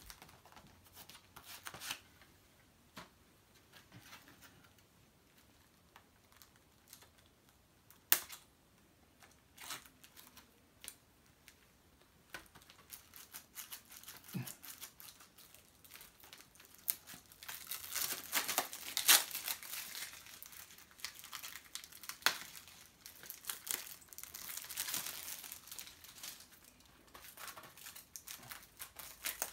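Plastic shrink wrap being torn and peeled off a Blu-ray case. It starts with scattered sharp clicks and rustles, then from about halfway through turns into denser crinkling and tearing of the plastic.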